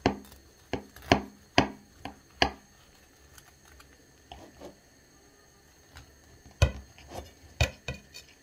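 A large kitchen knife sawing through a baked lavash parcel with a crisp cheese crust on a plate, making a series of sharp clicks and crunches. There are about six in the first two seconds, a quieter stretch in the middle, then another cluster of loud clicks near the end.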